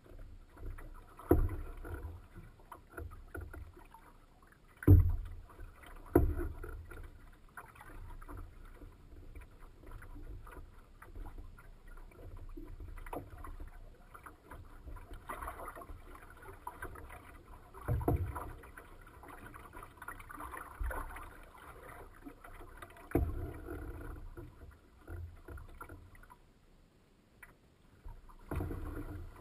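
Choppy lake water splashing and lapping against the hull of a small boat such as a canoe or kayak, with several sudden hard thumps at irregular intervals as waves strike the hull.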